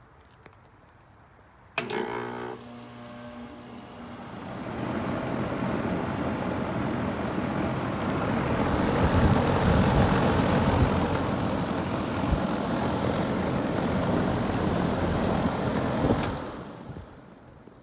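2017 Goodman central air conditioner outdoor unit starting up and shutting down: it comes on suddenly with a hum about two seconds in, then the fan's rushing noise builds over a few seconds and runs steadily. Near the end the unit shuts off and the sound dies away.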